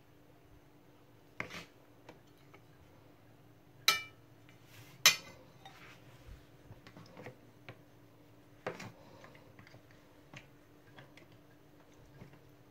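Metal spoons clinking against a ceramic plate and a serving pot: several sharp clinks, the loudest about four and five seconds in, one ringing briefly, with lighter taps between. A steady low hum runs beneath.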